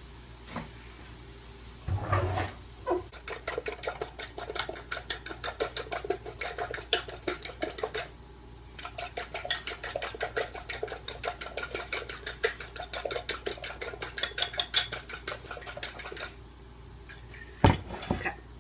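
A fork whisking eggs in a bowl: quick, even clicking strokes against the bowl, about five a second, in two long runs with a short pause between. There is a knock just before the whisking starts and a sharp thud near the end.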